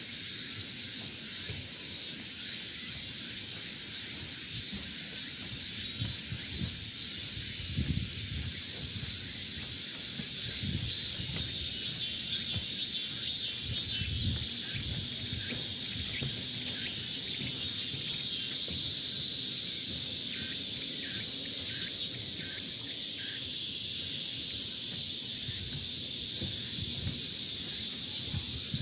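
Steady high-pitched insect chorus in a summer forest, a continuous hiss with a fine flickering texture, with irregular low rumbles underneath.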